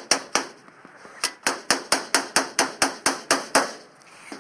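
Hammer blows: two strikes, a short pause, then a quick run of about a dozen evenly spaced strikes, some four a second, which stops shortly before the end.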